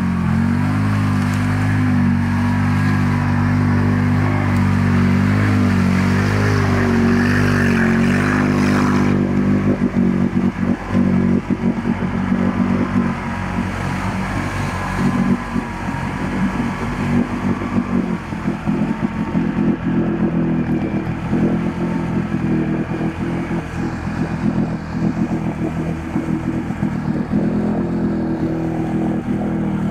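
Quad bike (ATV) engine running under load as it drives through deep floodwater, with water splashing and churning. For roughly the first nine seconds the engine note is steady, then turns ragged and uneven while the quad wades in deep water, and a steady note returns near the end.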